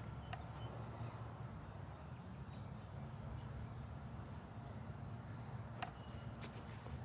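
Faint outdoor ambience under a steady low rumble, with a couple of brief, high bird chirps about three seconds in and a single light click near the end.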